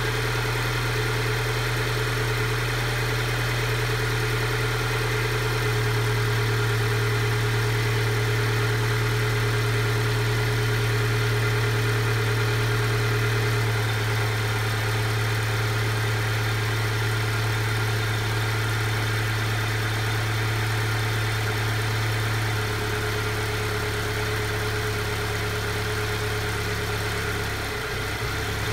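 Alfa Romeo Giulia engine idling steadily after a cold start, an idle the owner calls rough. The idle eases slightly lower about three-quarters of the way through.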